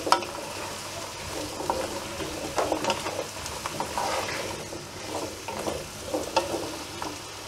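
Diced carrot, onion and garlic sizzling in oil in a pot as a wooden spoon stirs them, with short scrapes of the spoon against the pan now and then.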